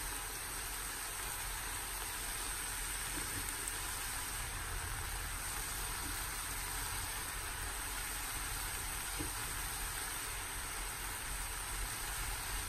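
Steady, faint sizzle of turkey pieces and vegetables cooking in a frying pan over a gas flame.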